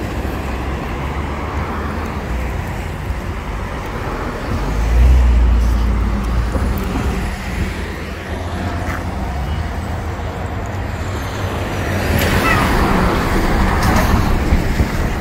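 Road traffic passing: steady engine and tyre noise from cars and larger vehicles, with a louder low rumble about five seconds in as a vehicle goes by.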